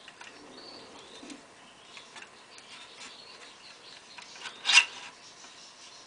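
Handling noise from a small homemade bird trap: its wire bars and lift-up door rubbing and scraping as they are moved by hand, with one brief louder rattle near the end.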